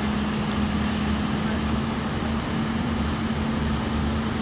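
Excavator's diesel engine running at steady revs: a constant hum over a low throbbing rumble.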